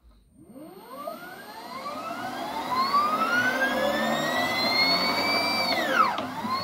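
Toyota Prius transaxle's electric drive motor, fed by the Prius inverter under field-oriented control, spinning up with a whine of several tones that rises steadily in pitch for about six seconds. The whine then winds down sharply near the end. It is turning in the backward direction, the one in which the controller runs it smoothly.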